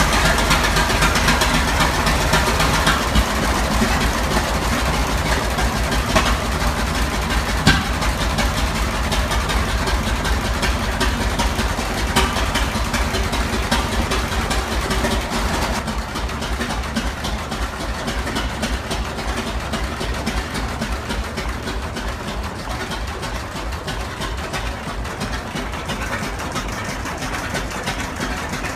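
Hall-Scott six-cylinder engine running with a rapid, even firing beat. It grows gradually quieter, and its higher hiss falls away about halfway through.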